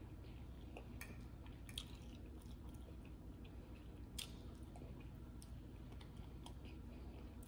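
Faint close-up chewing of soft food, baked chicken and mashed potatoes, with scattered small clicks.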